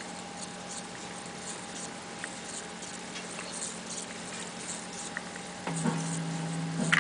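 Ampex 601-2 tube reel-to-reel recorder switched on and humming steadily, with faint scattered ticks. A little before the end the hum changes to a different, slightly louder set of low tones.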